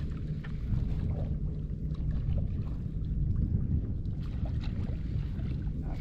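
Wind buffeting the microphone: a steady low rumble with no clear events in it.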